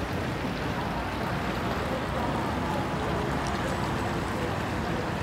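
Steady outdoor ambience: a constant, even rushing noise with faint scattered voices in the distance.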